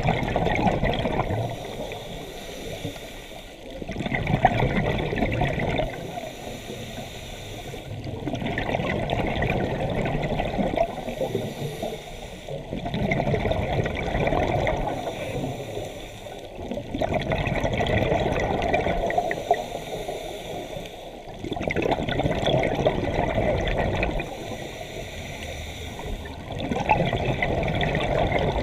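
Scuba diver breathing through a regulator underwater: exhaled bubbles gurgle out in bursts about every four seconds, with quieter stretches between.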